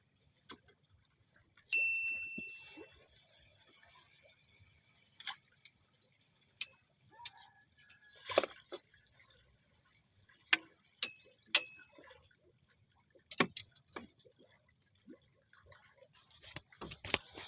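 Scattered small clicks and knocks of fishing gear being handled, with one bright metallic ping about two seconds in that rings and fades, and two short faint pings later on.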